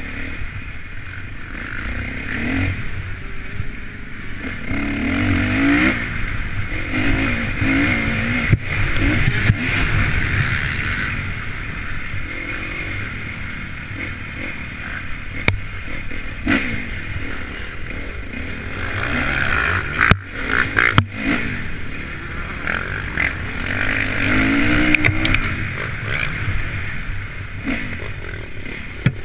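Honda CRF450 motocross bike's single-cylinder four-stroke engine revving up and down over and over while riding, with wind rush on the microphone. Several sharp knocks come from the bumps, the loudest about twenty seconds in.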